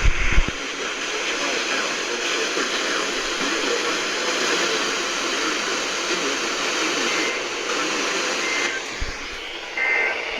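Steady radio static hiss from a software-defined radio receiver, with a few low thumps at the start and brief high tones near the end.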